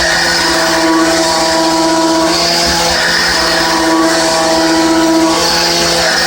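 Hermle C20U machining centre trochoidal-milling with a 16 mm solid carbide end mill spinning at 4800 rpm, cutting at full 30 mm depth with a 1 mm step-over. The cut gives a steady pitched hum with a hissing edge that swells and fades about every two seconds as the tool loops through its trochoidal passes.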